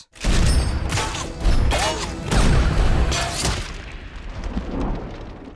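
Movie sound effects: several heavy booms over a deep rumble, with music underneath, fading away over the last couple of seconds.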